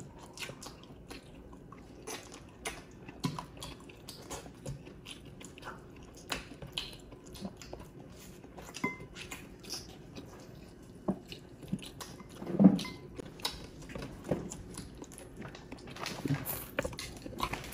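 Close-up eating sounds of roast chicken being eaten by hand: chewing, biting and wet lip smacks, heard as scattered small clicks. A louder burst of mouth noise comes about two-thirds of the way in.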